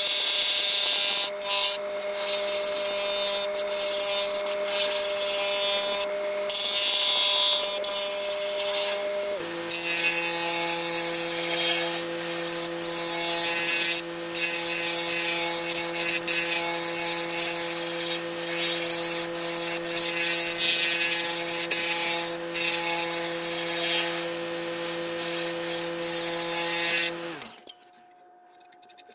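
Laguna Revo wood lathe running with a steady motor whine while a carbide tool cuts the spinning winged ash bowl, the scraping hiss of the cut coming and going. The whine steps down in pitch about a third of the way in, and near the end the lathe winds down and stops.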